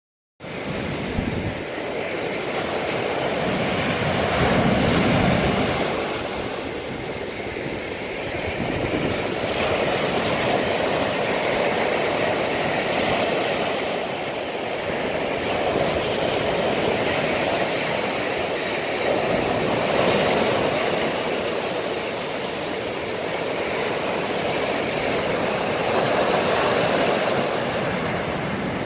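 Lake waves crashing on the shore in a continuous rush, swelling and easing every several seconds.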